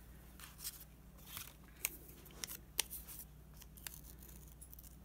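Small red-handled scissors snipping white paper in short, irregular cuts, about a dozen snips.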